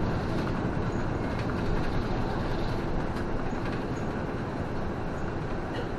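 Toei city bus driving along a street, heard from inside the front of the passenger cabin: steady engine and road noise.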